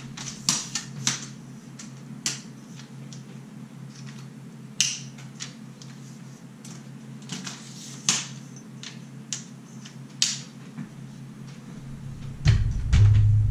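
Aluminium lightweight tripod being handled and adjusted: scattered sharp clicks and snaps of its leg locks and metal legs, a dozen or so spread irregularly. A louder low rumbling thud comes near the end.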